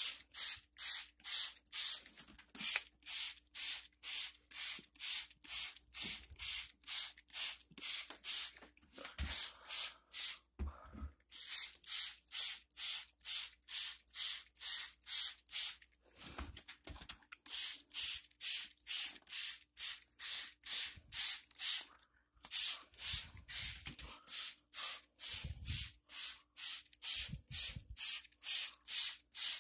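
Plastic trigger spray bottle misting houseplant leaves: quick repeated squeezes give short hissing sprays at about three a second, stopping briefly a few times between runs.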